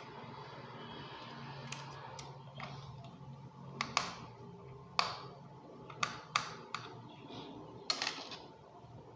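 Irregular sharp clicks and taps as a laptop's hard drive and casing are handled, about ten in all, the loudest bunched in the middle of the stretch.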